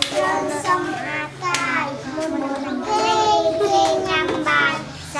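Group of young children singing together in unison, with notes held and sliding from one pitch to the next.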